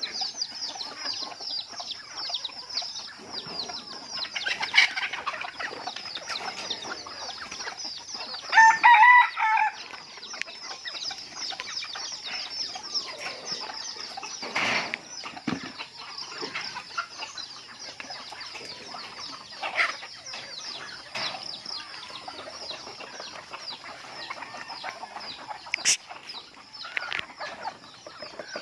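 Native chickens clucking, with one loud pitched rooster call about nine seconds in, over a constant high-pitched chirring.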